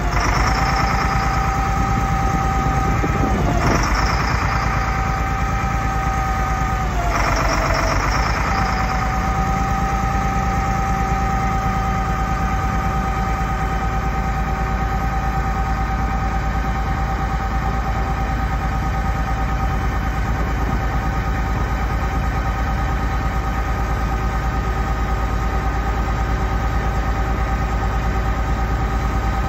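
Sterling L7500 grapple truck's diesel engine running steadily with a steady whine from its hydraulic system while the Prentice knuckle-boom loader is worked. The sound swells twice, over the first few seconds and again about seven seconds in, and the whine briefly sags in pitch each time as the boom takes load.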